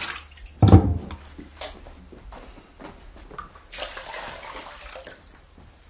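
Water being scooped with a wooden dipper and poured into a basin on the floor: a heavy knock of the dipper just under a second in, small clinks and splashes, then a stretch of pouring and trickling near the middle.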